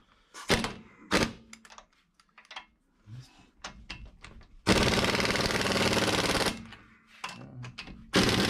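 Impact wrench running lug nuts onto a van's front wheel: a few short clicks, then a loud hammering rattle of about two seconds about halfway through that tails off, and another burst starting near the end.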